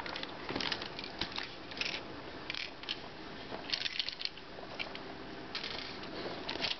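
Light, irregular clicks and scrapes of fingers and a loose screw against a netbook's plastic case as it is handled and tilted to get out a screw that fell inside, with a cluster of clicks about four seconds in.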